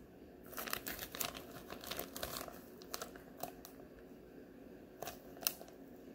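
Clear polypropylene poly bag crinkling as it is handled, with a quick run of crackles over the first couple of seconds, then a few sharp, separate crackles, the sharpest about five and a half seconds in.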